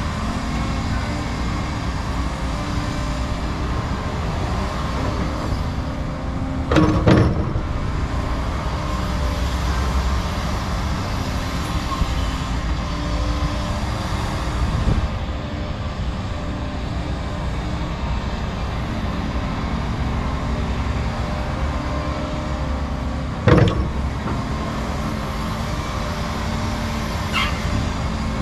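Hydraulic excavators working, their diesel engines running steadily, with two sharp knocks, about seven seconds in and again some sixteen seconds later.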